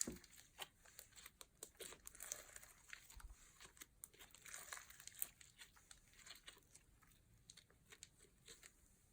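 Plastic bags crinkling as they are handled, a soft run of crackles that thins out toward the end.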